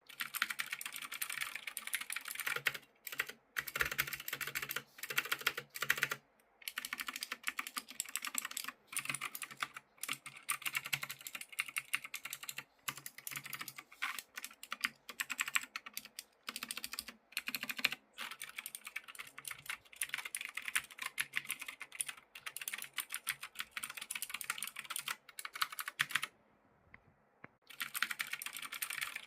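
Keychron C2 mechanical keyboard with Gateron Blue clicky switches being typed on quickly and continuously, a rapid patter of sharp key clicks broken by brief pauses, with a gap of about a second near the end.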